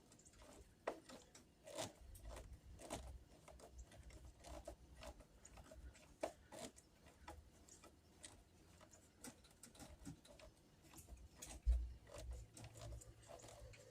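Faint, scattered small clicks and taps of storm door latch hardware being handled, with a few low thumps about two seconds in and again near the end.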